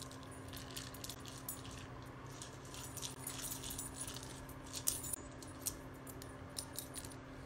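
A clear plastic toy ball rattling and clicking irregularly as a dachshund puppy noses it across the carpet, over a steady low hum.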